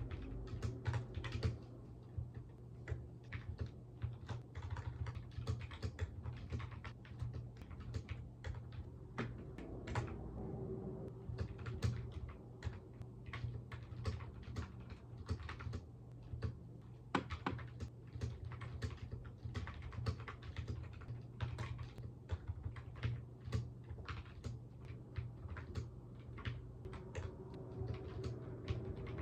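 Continuous typing on a computer keyboard: irregular quick runs of key clicks with short pauses between, over a steady low hum.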